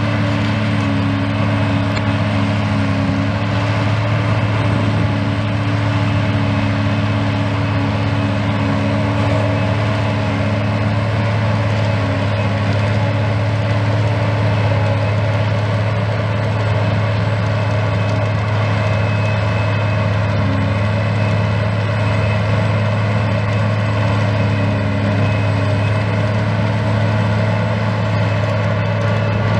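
John Deere 8800i self-propelled forage harvester running steadily under load while chopping grass, a constant deep hum of engine and cutting drum with steady higher tones over it.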